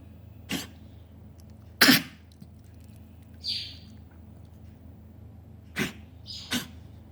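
Coughing in four short, separate coughs, the loudest about two seconds in, with a brief high-pitched sound about halfway through.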